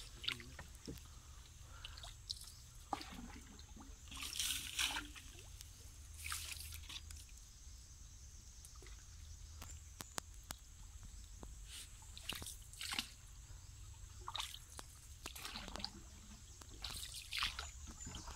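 Hand paddle dipping and pulling through still canal water from a small boat: irregular splashes and sloshes every second or two, with a few light knocks.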